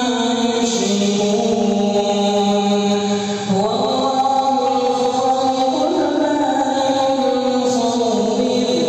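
Quran recitation: a male qari chanting Arabic verses in melodic tajweed style, holding long notes that step to a new pitch twice and slide down near the end.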